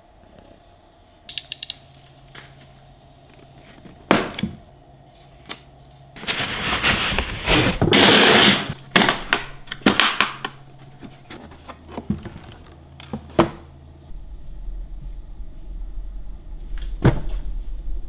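Unpacking a plastic tool carry case by hand: a long rustling scrape as its cardboard sleeve is slid off, then scattered clicks and knocks as the metal wire latches are flipped open and the lid is lifted.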